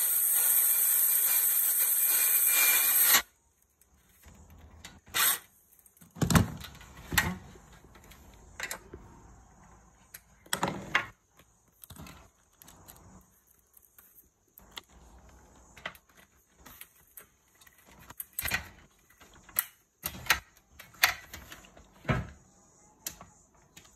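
A loud steady hiss for about the first three seconds, then scattered knocks and clicks as the metal bars of a roof luggage basket are pushed into their plastic joints and handled.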